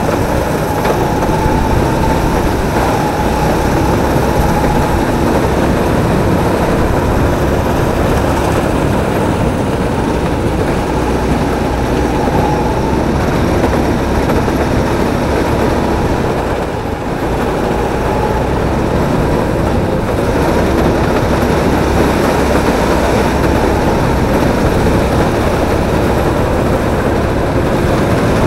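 Drift kart driven around a track, heard from on board: a loud, steady running noise with a faint whine through it. It dips briefly about two-thirds of the way through.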